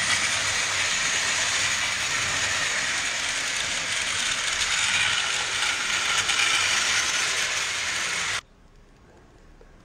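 Battery-powered toy trains running on plastic track: a steady whirring hiss from their small motors and wheels. It cuts off suddenly about eight seconds in, leaving only a faint background.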